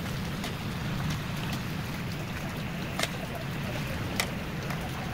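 Pork carnitas frying in lard in a large metal cazo: a steady low rushing with scattered sharp pops, the loudest about three seconds in and again past four seconds.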